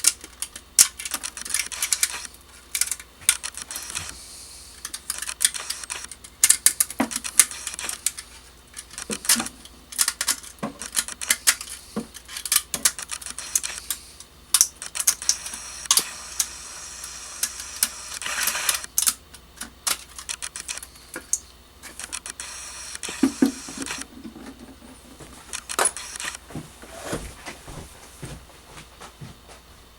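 Rapid, irregular clicking, snapping and scraping as support material is picked and broken off a wood-filament 3D print, the clicks thinning out over the last few seconds.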